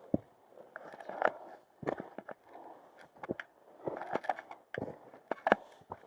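Footsteps of hikers climbing a steep rocky mountain trail: irregular crunching steps and knocks, with gear rustling between them.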